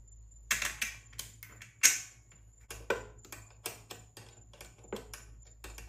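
Small metal parts of a carburettor clicking and tapping together as it is fitted back onto a 125cc pit bike engine by hand: a quick series of sharp clicks, the loudest about half a second and two seconds in.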